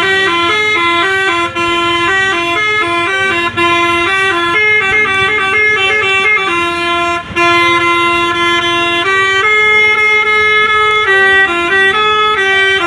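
Basuri telolet bus horn playing a tune: a run of steady, held horn notes stepping up and down in pitch, with a brief break about seven seconds in.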